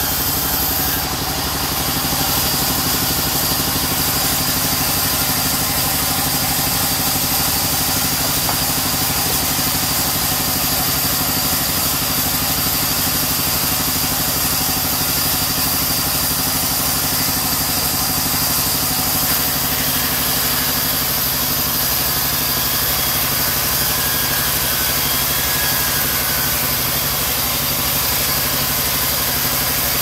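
Sawmill band saw running steadily while it rips a mahogany plank, a constant machine drone from the saw's drive with the hiss of the blade in the wood.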